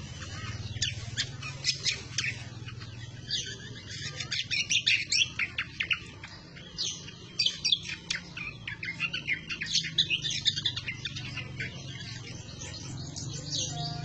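Caged cucak kombo chattering in full song (ngomel gacor): quick runs of sharp, high chirps in several bursts with short pauses between, tailing off near the end.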